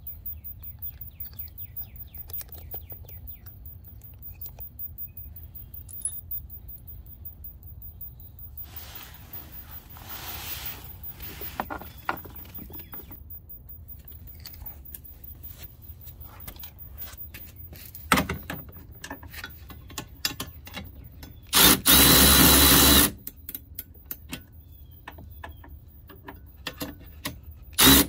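Milwaukee M12 cordless ratchet running briefly for just over a second with a steady high whine, starting again right at the end. In between are light metallic clicks and taps of hand tools on the hitch bolts.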